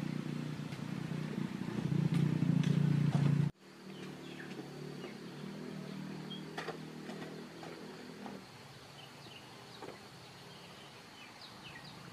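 A steady low engine hum, loud at first and cut off abruptly about three and a half seconds in, followed by a softer engine hum that fades out around eight seconds in. After that there are only faint, scattered high chirps.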